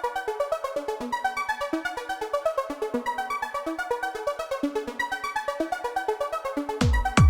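Electronic background music: a fast, repeating synthesizer arpeggio, with a heavy bass drum beat coming in near the end.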